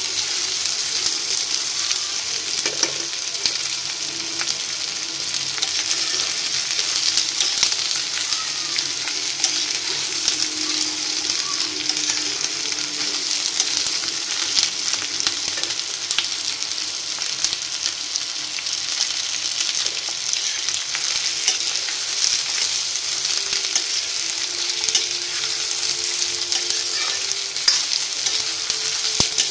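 Garlic cloves, chopped green chillies and ginger sizzling steadily in a little hot mustard oil in a kadhai, being semi-fried to drive off their moisture and sharpness. A metal spatula stirs them, with frequent clicks and scrapes against the pan.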